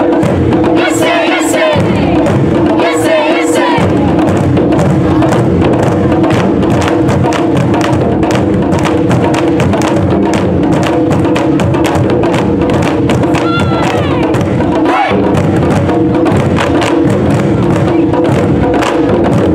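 A taiko drumming ensemble playing a fast, driving rhythm of dense stick strokes on many barrel drums. The players' shouted kiai calls rise over the drums twice near the start and once more about two-thirds of the way through.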